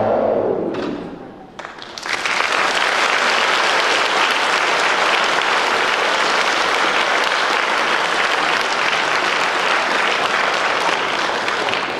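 The music's last chord dies away, a couple of lone claps sound, then audience applause breaks out about two seconds in and goes on steadily.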